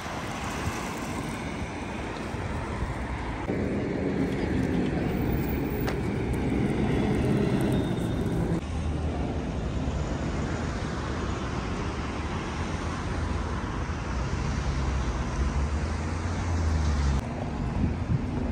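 Street traffic: motor vehicles running and passing, with a steady low engine hum through much of the second half that stops abruptly shortly before the end.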